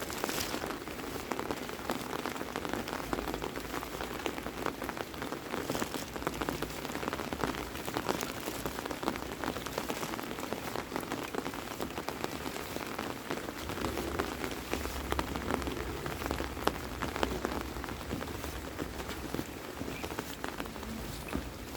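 Heavy rain falling, a steady dense patter of drops striking surfaces. A low rumble joins about two-thirds of the way through.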